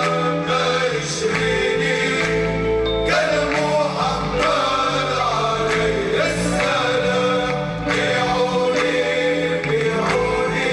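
A male chorus singing Tunisian Sufi devotional chant in unison with a lead voice, over a steady beat.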